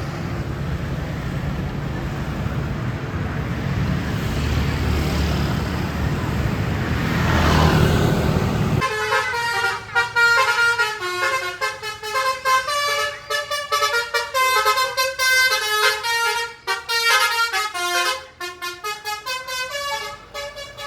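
Vehicle engine and road noise swelling as a vehicle passes close, then a bus's multi-tone telolet horn playing a quick melody of changing notes for the rest of the time.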